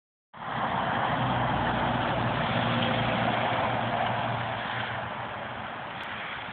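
Road traffic: tyre noise and a vehicle's steady engine hum passing on the road, fading away after about four seconds.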